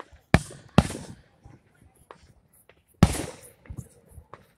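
Aerial firework shells bursting: two sharp bangs about half a second apart near the start, then a third about three seconds in, each dying away over about half a second.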